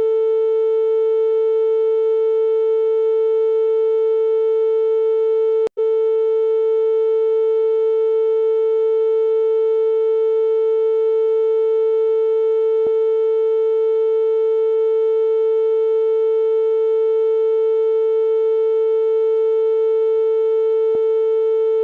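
A steady synthesized tone at one unchanging mid pitch, with fainter overtones above it. It cuts out for an instant with a click about six seconds in, then resumes unchanged.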